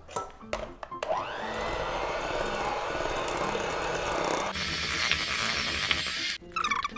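Electric hand mixer starting up about a second in and whirring steadily as its beaters work flour into creamed butter in a stainless steel bowl. The sound of the whir changes about four and a half seconds in, and it cuts off suddenly near the end.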